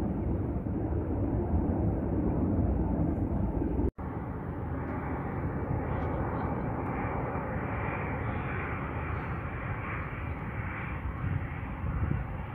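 A low rumble, cut off abruptly about four seconds in, then the steady noise of a jet airliner's engines as it flies low over the runway, building about a second after the cut and holding.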